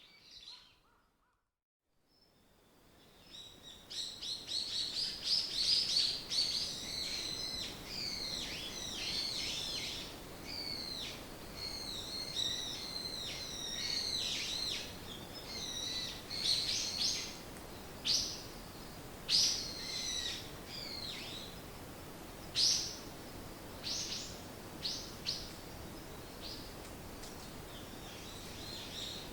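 Songbirds singing and chirping: a dense, overlapping chorus of quick high warbles and chirps that thins after about fifteen seconds to scattered single calls, over a faint steady hiss. Just after the start the sound cuts out to silence for about a second before the birds come in.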